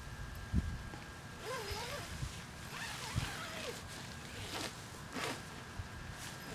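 Nylon tent door zipper being pulled shut in several short runs.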